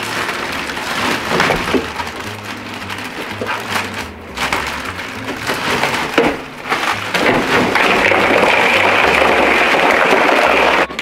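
Ice cubes rattling and crackling in a plastic bag, then poured into a plastic cooler in one long, steady rushing pour over meat in the last few seconds. Background music plays underneath.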